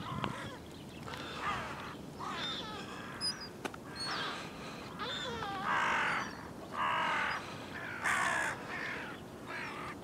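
A flock of gulls calling, many harsh overlapping calls, with three louder, longer calls in the second half.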